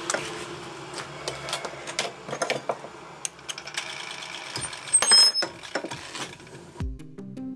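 Irregular clicks and knocks at a stopped lathe, with a short high squeal about five seconds in. Background music starts near the end.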